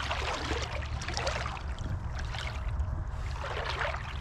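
Shallow pond water splashing and sloshing in irregular bursts around a northern snakehead speared on a three-pronged fish gig as it is worked up through the water.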